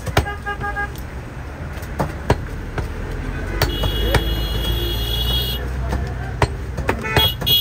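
Street traffic with a steady low rumble and vehicle horns honking: a few short beeps just after the start, a long high-pitched horn note in the middle and another horn near the end. Scattered sharp knocks are heard throughout.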